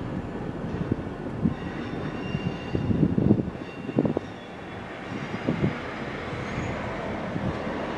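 Train rolling slowly out of view: a steady rumble with irregular clanks and knocks from the rails, most of them about three and four seconds in, and a faint, steady high squeal.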